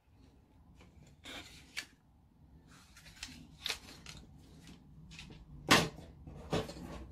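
Hard resin and plastic model-kit hull parts handled on a tabletop: a run of light knocks, taps and rubbing as the pieces are picked up and moved. One louder knock comes about six seconds in.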